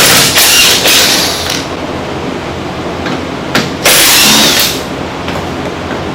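Power drill-driver backing out the screws of a plastic body panel, running in two spells: about a second and a half at the start and about a second near four seconds in.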